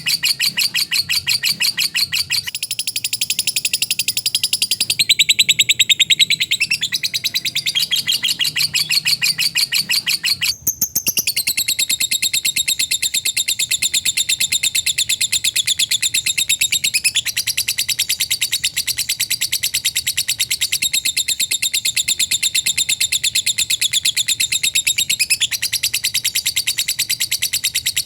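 Lovebird 'ngekek': a long, rapid chattering trill of high, fast-repeated notes, with a brief break about ten and a half seconds in.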